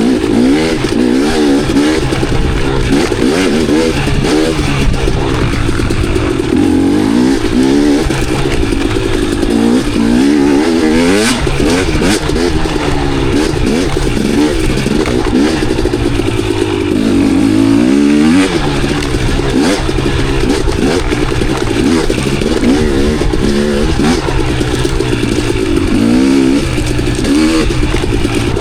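Dirt bike engine revving up and down continually as it is ridden on a trail, the pitch rising and falling every second or two with the throttle and gear changes.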